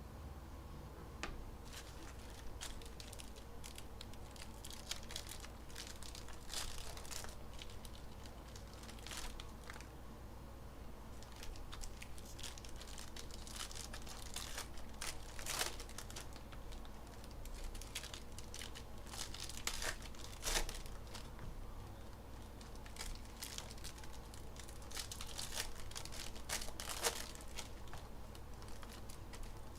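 Foil trading-card packs being torn open and their wrappers crinkled by hand, in an irregular run of crackles with a few louder tears.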